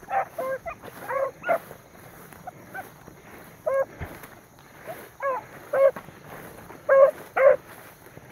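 Beagles baying while running a trail in the cover: about a dozen short pitched bays at irregular spacing, the loudest near the end.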